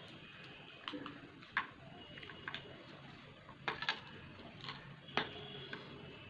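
Eating sounds: a handful of sharp wet clicks at irregular intervals, from chewing with the mouth and from fingers squeezing and mixing rice and curry on a plate.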